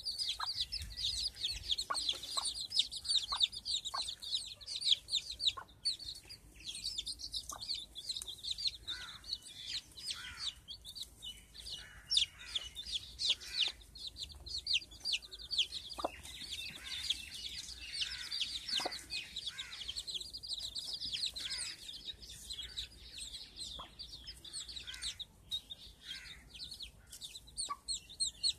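Domestic chicks peeping constantly in rapid, high, falling cheeps, with a hen's lower clucks now and then.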